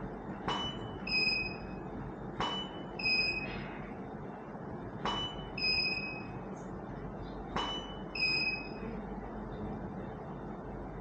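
Camera shutter clicking four times, each shot followed about half a second later by a short high electronic beep from the studio flash signalling it has recharged.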